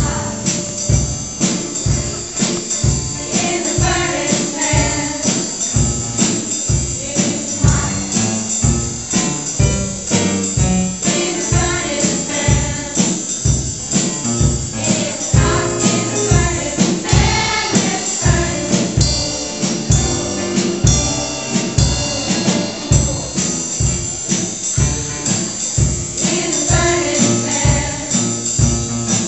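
Upbeat song with a steady beat, tambourine and a choir singing.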